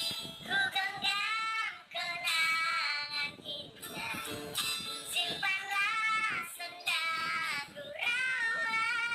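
A singing voice pitched very high, strange-sounding, singing short phrases that bend up and down, with music behind it.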